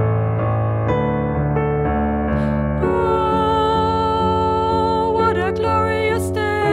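Worship song with keyboard chords, and a singing voice coming in about three seconds in.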